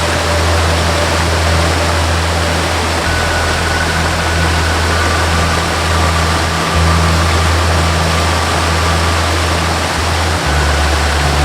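Waterfall rushing steadily, mixed with a slow ambient melody of long held low notes that change every few seconds and a few faint high sustained tones.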